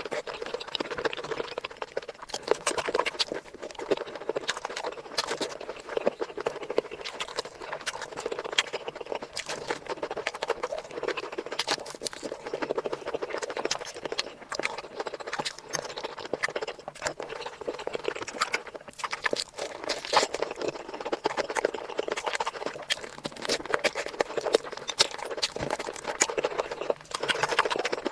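Close-miked eating sounds: wet chewing with a dense, irregular run of mouth clicks and smacks.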